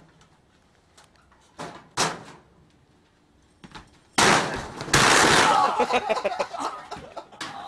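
Tall sheet-metal locker tipping over and crashing onto the floor about four seconds in, a loud metallic clatter that dies away over a few seconds. Before it come a few light knocks and one sharp bang about two seconds in.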